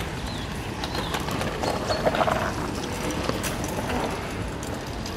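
Kick scooter rolling along an asphalt path: a steady low rumble with scattered clicks, and faint bird chirps above it. A louder brief sound stands out about two seconds in.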